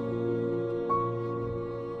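Slow, gentle background music with sustained held notes, a new note coming in softly about a second in.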